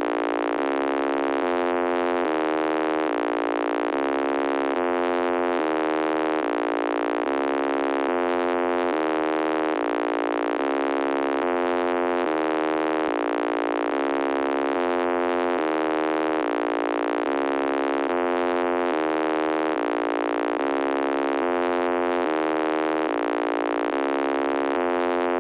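Synthesized electronic test tone, buzzy and full of overtones, stepping between a few pitches in a repeating pattern with each note lasting under a second, at a steady level.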